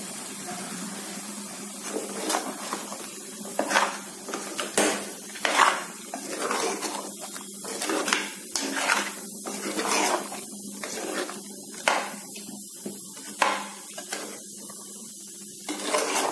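Metal ladle scraping and clinking against the inside of a metal pressure cooker as thick chicken masala with tomato purée is stirred. The strokes start about two seconds in and come irregularly, one or two a second.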